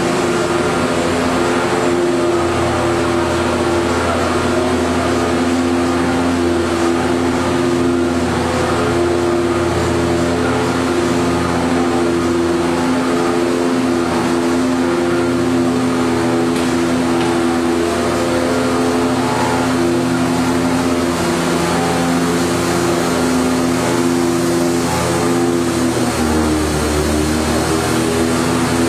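Corrugated cardboard production line machinery running: a steady, loud mechanical hum with several held tones from motors and rollers. The pitch dips briefly near the end.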